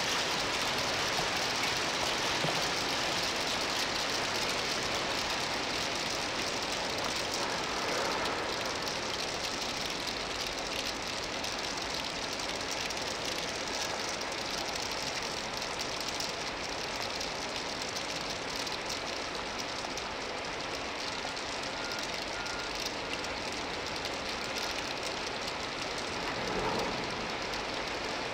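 Heavy rain falling in a steady hiss, with a freight train of autorack cars rolling slowly past underneath it.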